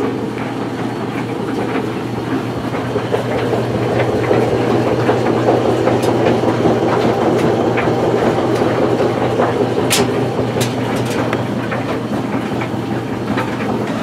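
A steady mechanical rumble over a low hum, a little louder from about four seconds in, with a few light clicks and knocks.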